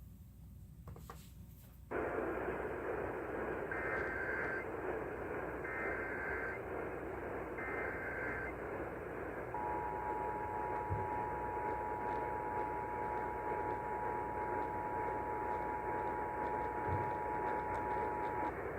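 Emergency Alert System test over a radio broadcast. A steady hiss starts about two seconds in, then come the three short data bursts of the SAME header, then the two-tone EAS attention signal, held for about nine seconds before it cuts off near the end.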